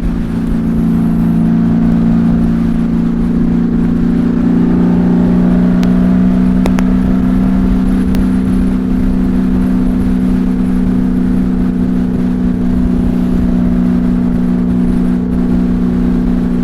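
Honda Valkyrie's flat-six engine, fitted with Cobra six-into-six exhaust pipes, running steadily at freeway cruising speed, mixed with wind rushing over the helmet, which has no windshield in front of it.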